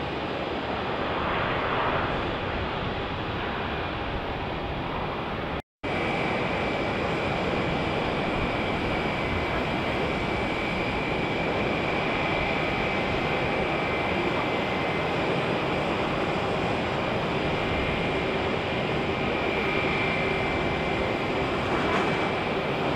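Jet airliners taxiing: a steady rush of engine noise with a high whine running through it. The sound breaks off for an instant about six seconds in.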